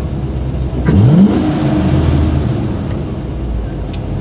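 1984 Chevrolet K20 pickup's engine revved once about a second in, pitch climbing quickly and then settling back to a steady idle, heard from inside the cab.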